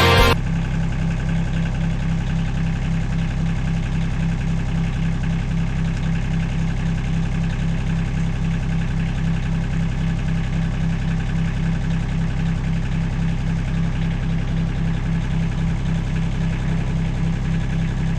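Bobcat X320 mini excavator's diesel engine idling steadily, with an even low throb.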